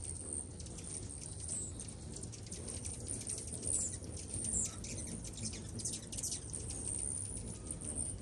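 Many hummingbirds chittering at feeders: a dense stream of thin, high-pitched chips and squeaks, with a few short falling squeals.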